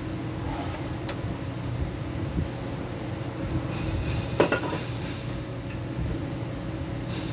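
Steady low workshop hum with a sharp metallic clink about four seconds in, ringing briefly. A short high hiss comes a little before the clink.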